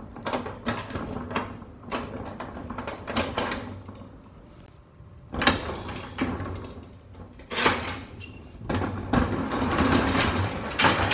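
Keys jingling and a padlock and latch being worked on a metal roll-up storage unit door, with clicks and clanks, then a sharp knock. Near the end the roll-up door rattles as it is pulled up.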